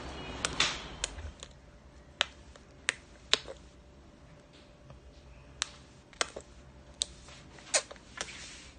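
A toddler clicking its tongue: about a dozen sharp clicks at uneven intervals, with quiet in between.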